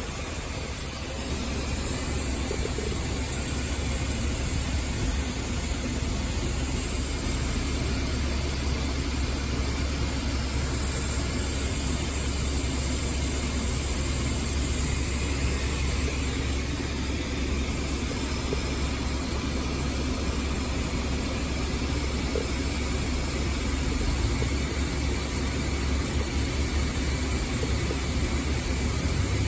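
Climate-control blower of a 2021 Volvo XC90 running at max, a steady rush of air with a hiss. This is the AC noise fault being demonstrated, which a Volvo technician attributed to known software and computer issues.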